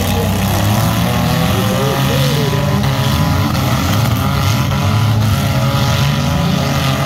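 The engines of several compact demolition derby cars running and revving at once, loud and steady.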